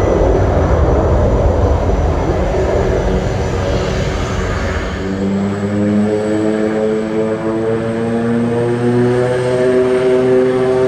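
The PT6 turboprop engines of a Beechcraft King Air are running during a ground run-up. Close to the propeller there is a dense, rushing engine and propeller noise. About five seconds in it gives way to a steady propeller drone with a buzzing hum whose pitch creeps slightly upward.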